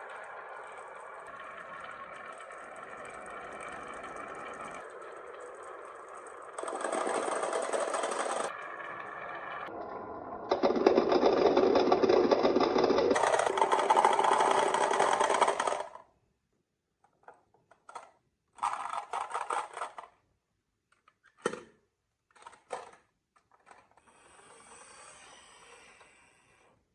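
Marbles rolling and rattling down marble-run tracks, a continuous clattering run that gets louder in steps and cuts off suddenly about 16 seconds in. After that come scattered clicks and short rattles of marbles knocking together and settling.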